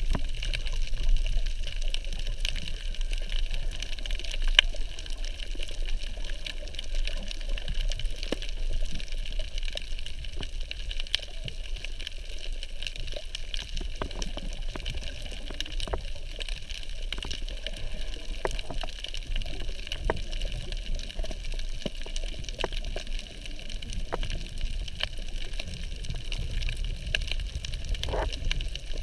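Underwater ambience picked up by a camera in its housing: a steady low rumble of moving water with a hiss, dotted with scattered sharp clicks.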